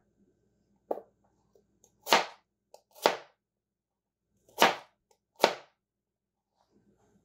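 A chef's knife chopping onion on a plastic cutting board: five sharp knocks of the blade against the board, about a second apart.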